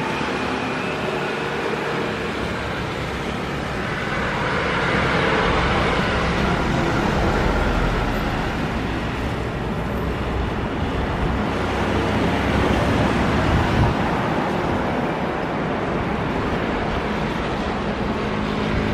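Jet engines of a Batik Air Airbus A320 at takeoff power on the takeoff roll down a wet runway: a steady, loud rush of jet noise that swells about four seconds in.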